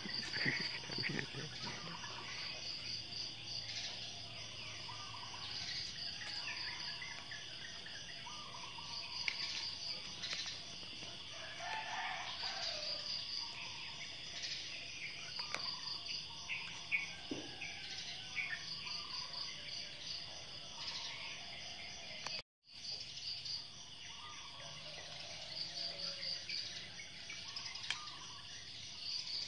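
Insects chirping in repeated short pulsing trills, with birds calling here and there.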